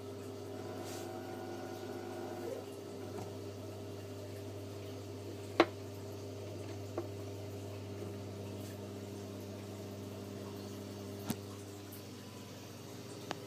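Aquarium sump plumbing running: a steady electric pump hum under water bubbling and trickling. Four sharp clicks break through, the loudest about halfway.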